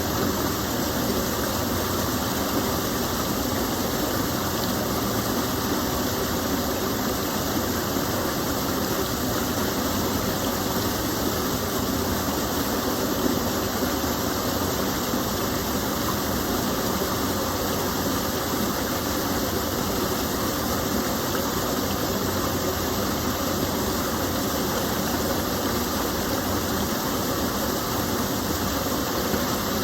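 Small stream of water falling and flowing: a steady, even rush of water with no breaks.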